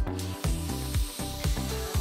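Background music with a steady beat, about two beats a second. Under it a heat gun's steady airflow hiss comes in right at the start as it heats a solder seal sleeve on a wire splice.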